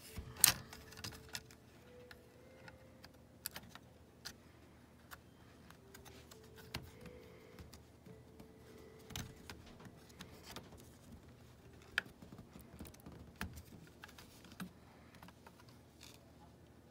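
Irregular clicks and taps of a router's circuit board and plastic housing being handled and pressed together as the board is fitted back into the case. The loudest click is about half a second in.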